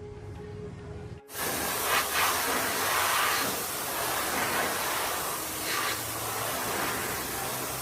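About a second in, a loud, steady hissing spray starts abruptly and runs on with slight surges, like a jet of water or air being sprayed.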